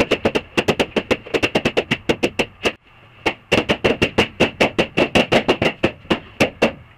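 Latex balloons bursting one after another in quick succession, about five or six sharp pops a second, with a brief pause about three seconds in.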